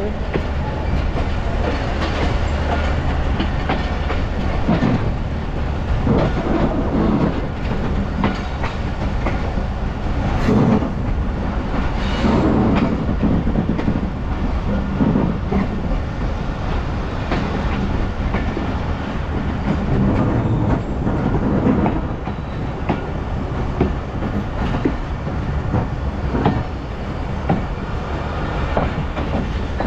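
Passenger train coach running on the rails as it pulls out of a station: a continuous rumble with wheels clattering irregularly over rail joints.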